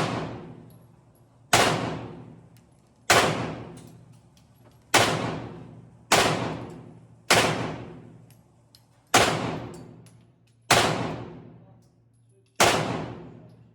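Single shots from a 9 mm Glauberyt submachine gun, fired one at a time about one to two seconds apart, eight in all. Each crack has a long echoing decay from the range.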